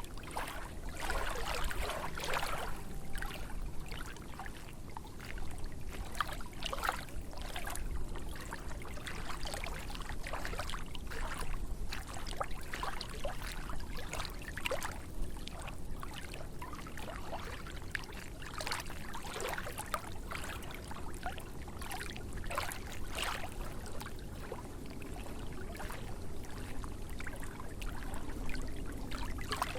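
Small lake waves lapping: an irregular run of short splashes, several a second, over a steady low background.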